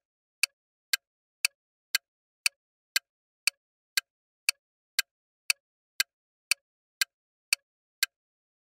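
Clock-tick sound effect for a quiz countdown timer: sharp, evenly spaced ticks, about two a second, with silence between them.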